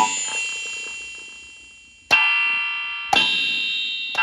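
Simmons electronic drum kit pads struck through an amplifier at full volume, each hit setting off a loud, ringing, bell-like tone that dies away slowly. Three hits about a second apart and a fourth right at the end, each cutting in over the fading ring of the last.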